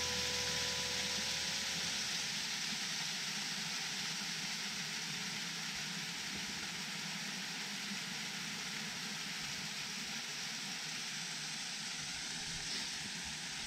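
Steady rushing hiss of a mountain creek running under snow and ice.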